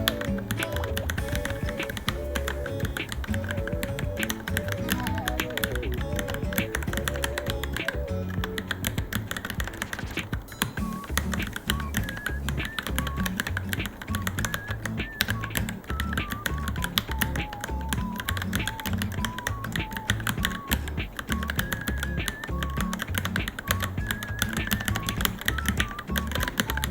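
Continuous fast typing on a Varmilo Minilo mechanical keyboard, a dense stream of key clicks, over background music with a melody and a steady bass.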